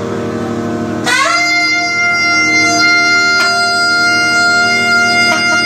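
Nadaswaram, the South Indian double-reed pipe, playing; about a second in it slides up into a high note and holds it steadily.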